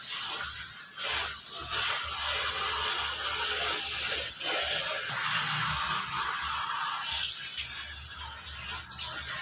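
Water running from a garden hose onto a dog being bathed and the wet concrete, a steady hiss and splash.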